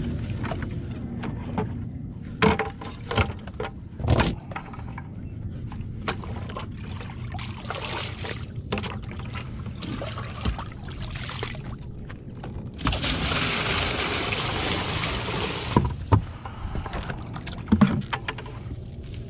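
A few sharp knocks of gear being handled in a boat, then water poured out of a bucket over the side into the lake for about three seconds, splashing, with further knocks after it.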